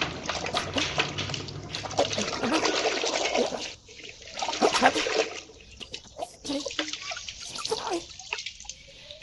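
Water running and splashing over a muddy toy as it is washed by hand, with clicks and knocks of the toy being handled. It eases off about halfway through, leaving smaller splashes and taps.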